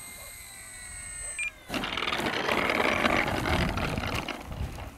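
Brushless electric motor and two-blade propeller of an XFly Tasman RC plane whining, its pitch falling as the throttle comes back on the landing approach. About a second and a half in, a sudden loud rushing noise takes over and runs steadily until just before the end.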